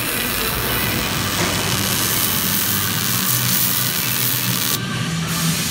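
MIG welding arc crackling and hissing steadily as a fillet weld is run along a steel joint.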